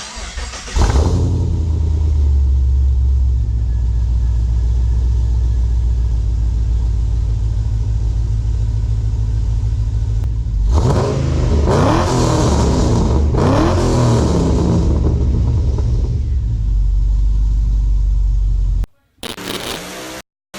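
Pontiac G8 GT's 6.0-litre LS V8 starting up through a freshly installed Borla S-Type cat-back exhaust and Pacesetter headers, with a low exhaust tone. It catches about a second in, idles loudly and settles lower, and is blipped up in three quick revs midway before dropping back to idle. It cuts off near the end.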